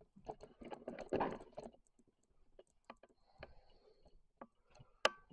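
Light, scattered clicks and knocks of someone moving about, busier in the first two seconds, with one sharper click near the end.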